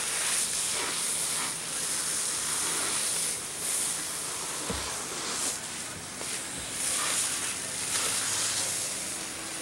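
Steady hiss of a fire hose's water stream spraying onto a burning boat, swelling and easing slightly.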